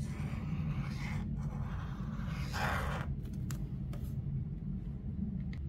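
Felt-tip marker drawing on sketchbook paper: a few soft scratchy strokes over about three seconds, the last the loudest, followed by a few light clicks, over a steady low hum.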